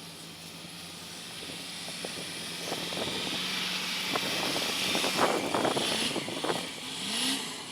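A car sliding down an icy, snow-covered hill. Its tyre and engine noise swells over a few seconds, peaks in the middle and eases off near the end, with a run of crunching clicks.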